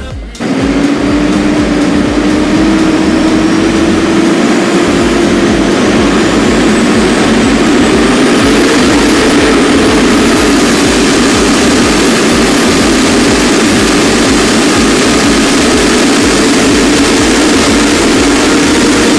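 Massey Ferguson tractor's diesel engine running loud and steady, heard close to its exhaust stack. It starts abruptly about half a second in, and its pitch creeps up over the first several seconds, with a faint high whine rising and wavering above it.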